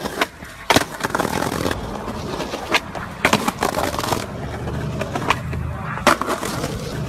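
A skateboard rolling on pavement, its wheels making a low rumble, with a series of sharp pops and clacks as the tail snaps down and the board lands during flatground flip tricks.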